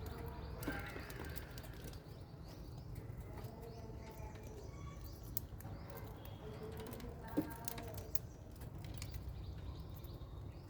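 Budgies and lovebirds in an aviary chirping and chattering in wavering calls over a low steady rumble, with one sharp tap about seven seconds in.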